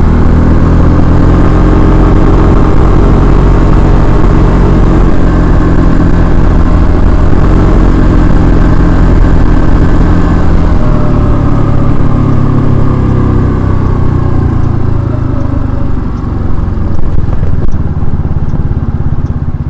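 Kymco KRV scooter's single-cylinder engine and exhaust running steadily, its note dropping about halfway through and falling gradually after that.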